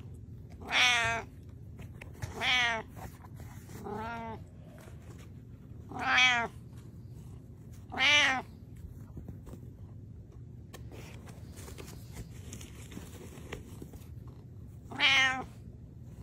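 Domestic cat meowing six times in short calls, the first five about two seconds apart and the third one fainter, then a pause of several seconds before a last meow near the end.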